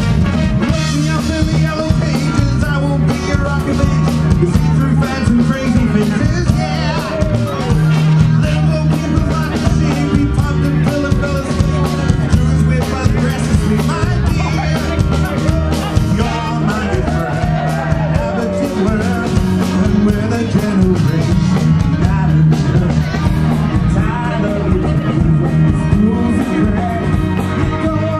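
Military brass band with drum kit playing live, a full ensemble of sustained brass over a bass line.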